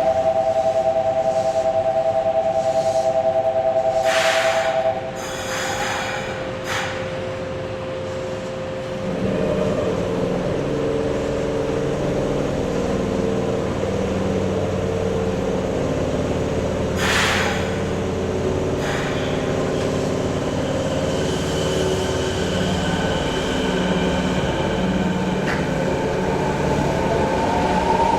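A loud two-note buzzer sounds steadily for about five seconds at the station stop, with a couple of brief rushes of noise soon after. About nine seconds in, a Kobe Municipal Subway 1000 series train with IGBT VVVF inverter control starts to pull away: the inverter and traction motors give several steady tones, and one tone rises in pitch near the end as the train gathers speed.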